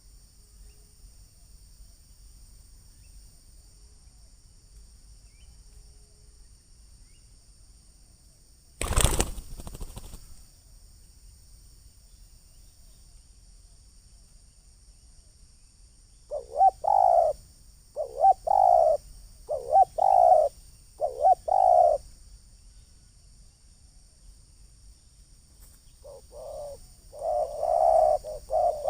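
Spotted doves cooing: a run of about six rhythmic coo notes in the middle, then a faster run near the end. There is a sudden loud rustle about nine seconds in, and a steady high insect-like hiss underneath throughout.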